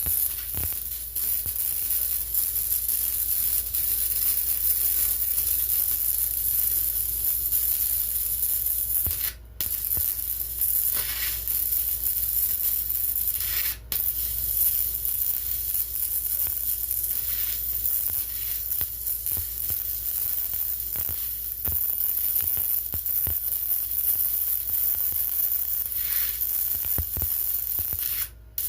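Electric welding arc crackling and sizzling steadily as a bead is laid on a go-kart frame's motor mount, the arc stopping briefly twice partway through and again near the end.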